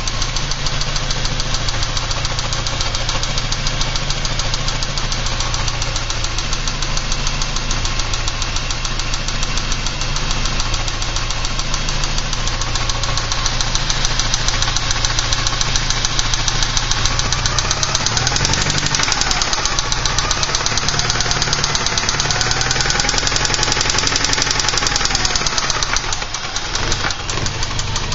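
A 1986 Porsche 944 Turbo's turbocharged four-cylinder engine running with a fast, steady ticking knock. The owner is unsure whether it is lifter noise or rod knock. Past the middle, a whine rises and falls a few times.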